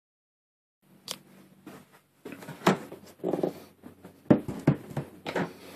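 Cardboard product box being handled and turned around on a table: several sharp knocks with scraping and rustling between them, starting after a second of dead silence.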